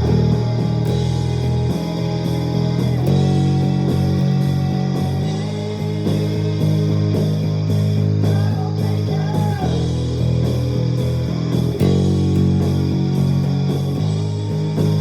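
Luxars S-KB20 travel mini-size electric bass being played in a sound test, with sustained low notes over a rock backing with steady drum hits.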